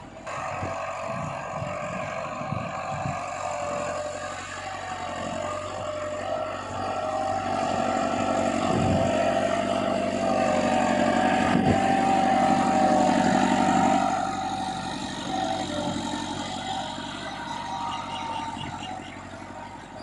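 Massey Ferguson 375 tractor's diesel engine running steadily under load while it pulls a 13-tine cultivator set fully deep in the soil. The engine grows louder through the middle and fades again near the end.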